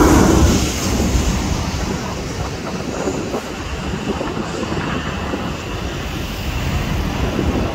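Jet engine noise of a Boeing 737-800 with CFM56 engines passing low overhead, loudest at the start and fading within about a second into a steady rumble as the airliner goes down to land.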